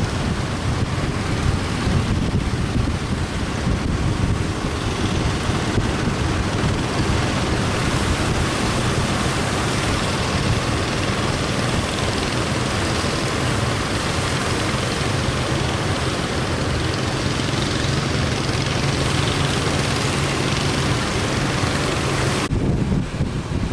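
Strong wind buffeting the microphone over crashing surf, with a motor's steady low drone through the middle stretch. The noise thins suddenly near the end.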